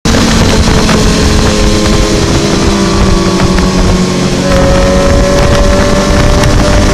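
Suzuki sport bike's inline-four engine running under steady throttle at highway speed, with wind rushing over the microphone; its pitch edges up slightly about halfway through.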